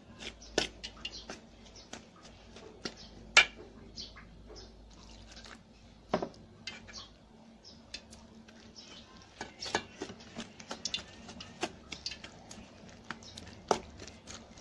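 Plastic spatula scraping and knocking against an aluminium mixing bowl while stirring wet flour batter, with irregular sharp clicks throughout. The loudest knock comes about three seconds in.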